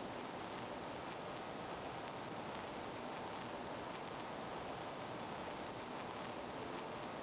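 Steady hiss of background noise, even and unchanging, with no distinct sound standing out.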